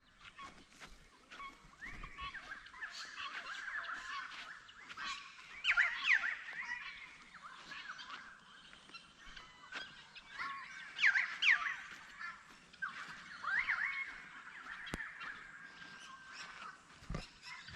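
Several birds calling together, a mix of chattering and harsh calls, with louder bursts about 6 and 11 seconds in.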